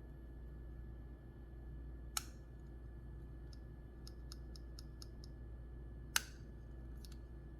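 Titanium frame-lock folding knife being worked by hand: two sharp clicks about four seconds apart, typical of the blade snapping open or shut, with a quick run of light ticks between them.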